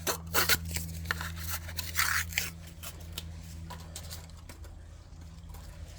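Rubber spatula scraping thick peanut butter out of a jar: a quick run of scrapes and knocks over the first two and a half seconds, then fainter handling.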